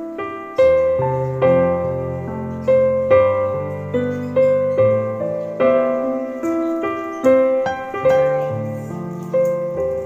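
Background piano music: a slow, gentle tune with a fresh note or chord struck about once a second over low bass notes.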